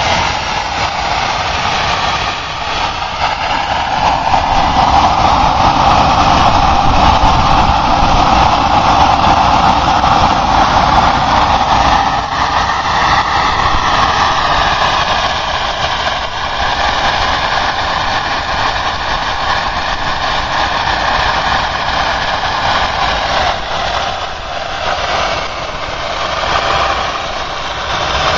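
Home-built jet engine made from a turbocharger and a combustion can, running loudly with a steady rush and whine. The pitch rises about twelve seconds in as it is throttled up, and drops back again a few seconds before the end.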